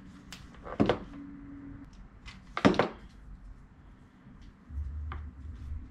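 Two short clattering knocks on a wooden workbench, about two seconds apart, as a hot glue gun and small parts are set down and handled. A low hum comes in near the end.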